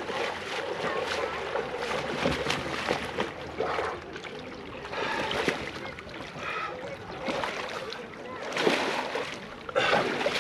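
Water splashing and sloshing irregularly as a person wades into cold water, with louder splashes near the end.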